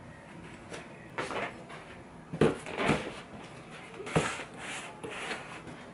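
Household handling noises: four or five dull knocks and thumps with some rustling, as things are moved about and set down on a table.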